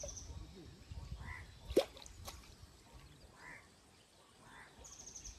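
Quiet rural ambience with faint bird calls every second or two and a high, rapid trill near the start and again near the end. One sharp click comes a little under two seconds in.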